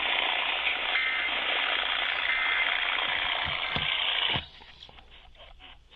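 Radio receiver static: a loud, steady hiss from a weak or untuned signal that cuts off abruptly about four and a half seconds in, after which a faint voice comes through.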